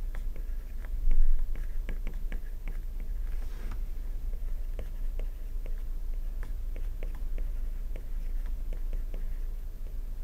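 Stylus writing on a tablet screen: a stream of light, irregular ticks and taps as a short sentence is handwritten, over a steady low hum.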